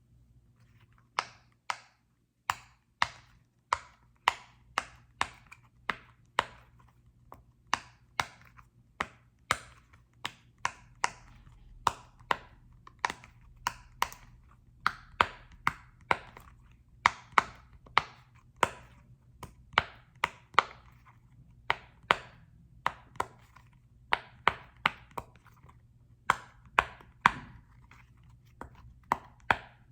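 Repeated sharp taps on a small football-shaped object, about one to two a second at an uneven pace, each with a brief ring.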